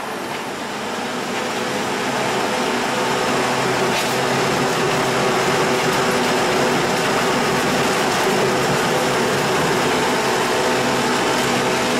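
MXJ218 sawdust log making machine (wood crusher) running under load, crushing wood into sawdust: a loud, steady mechanical drone with a continuous rushing noise and a steady hum. It dips right at the start and builds back up over the first couple of seconds.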